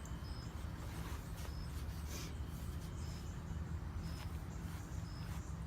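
Steady low background rumble with faint, short high-pitched chirps repeating about once a second.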